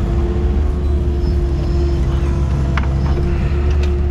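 Excavator's diesel engine running steadily under work, heard from inside the cab, with a steady hydraulic whine over it. A couple of short clicks or knocks come near the end.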